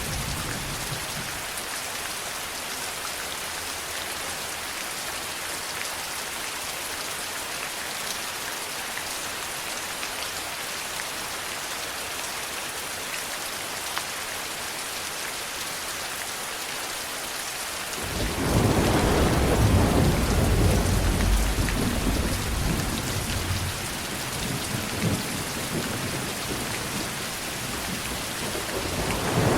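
Steady rain falling, with a long roll of thunder that breaks in suddenly about two-thirds of the way through, rumbles for about ten seconds and fades, and another roll beginning at the very end.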